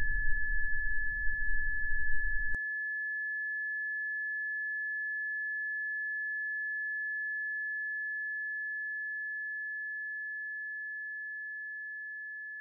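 Electronic sine tone: a single steady high pitch, held throughout and slowly fading over the last few seconds. Under it, a low rough noise cuts off suddenly about two and a half seconds in.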